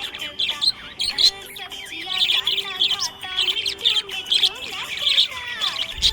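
Budgerigars chirping and warbling happily, a dense run of short rising and falling calls with no pause.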